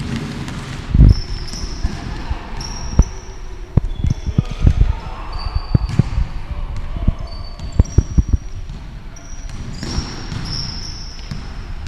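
Basketball game on an indoor court: a ball bouncing and players' feet thudding on the floor in irregular thumps, the loudest about a second in, with many short high-pitched sneaker squeaks.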